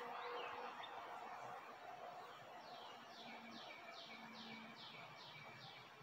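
A songbird singing faintly: a quick run of about eight down-slurred notes, roughly three a second, over a soft outdoor background hiss.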